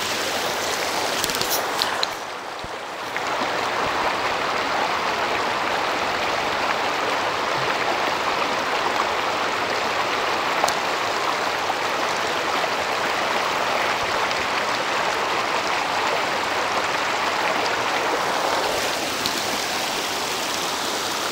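Rushing, bubbling water of a shallow, rocky mountain creek, mostly heard through the microphone of a waterproof phone held underwater in the current. The sound drops briefly about two seconds in as the phone goes under, then holds as a steady rush, and the open-air sound of the stream comes back near the end.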